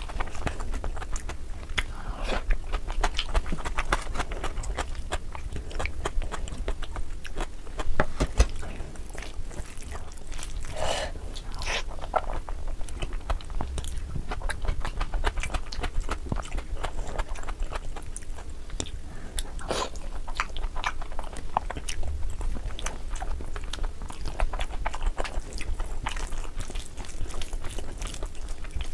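A person chewing mouthfuls of dal khichdi eaten by hand, with wet mouth smacks and a steady run of small clicks.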